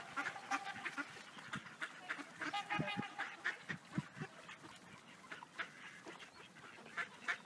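Flock of mallard ducks quacking, with a cluster of calls about two and a half to three and a half seconds in and scattered shorter calls around it.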